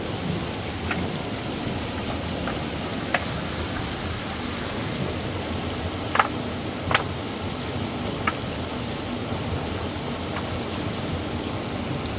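Steady rush of water, with a handful of short sharp clicks scattered through it, the loudest two about six and seven seconds in.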